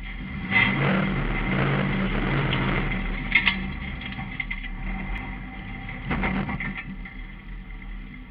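Off-road 4x4's engine running under throttle, heard from inside the cab, louder for the first few seconds and then easing off. A few sharp knocks, about three and six seconds in.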